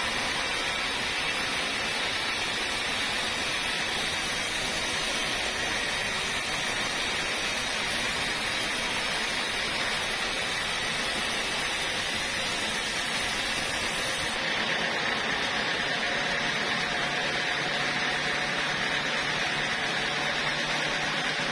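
Homemade band sawmill running, its blade cutting lengthwise through a teak log: a steady, even sawing noise. The sound shifts a little about two-thirds of the way through, with a low hum coming in.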